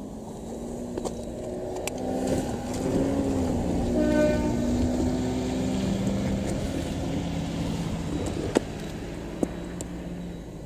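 Diesel railcar engines running as a train rolls slowly in and stops. The engine note swells and shifts in pitch, loudest about four seconds in, then settles to a steady hum. There are two sharp clicks near the end.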